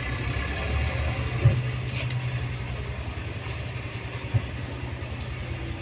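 Steady low mechanical rumble of an idling engine, with two short knocks about a second and a half and four seconds in.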